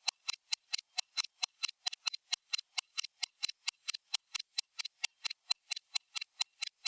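Stopwatch ticking sound: sharp, high, evenly spaced clicks, about four a second.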